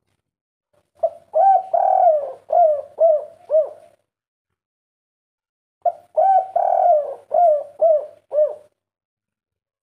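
Spotted dove cooing two phrases about five seconds apart. Each phrase is a short note, a long drawn coo and then three short 'kuk' notes: the 'kuk 3' song type.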